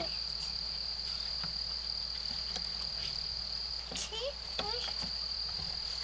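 Steady high-pitched drone of an insect chorus, one unbroken tone, with a few faint short vocal sounds from a toddler a little after halfway.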